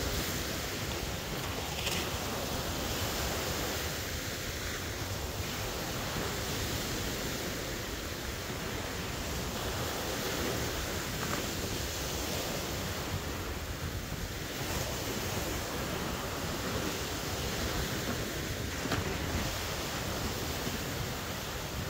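Steady surf washing on the shore, with a strong wind buffeting the microphone in gusty low rumbles. A few faint knocks are heard.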